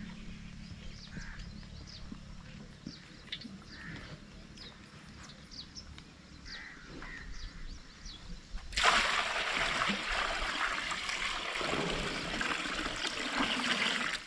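About nine seconds in, water is poured from a metal water pot into a metal bowl in a steady splashing stream, which stops just before the end.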